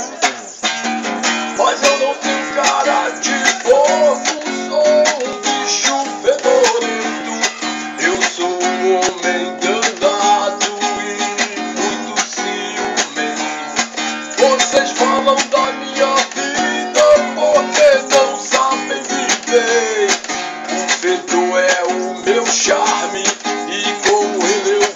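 Instrumental passage of a song: strummed acoustic guitar playing steadily, with a melody line of bending notes over it.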